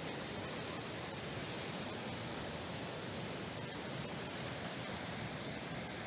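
Steady, even wash of distant ocean surf.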